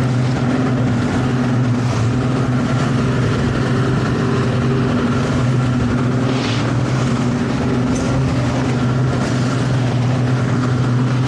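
Towboat's engine running steadily underway, a constant low hum that holds the same pitch and level throughout.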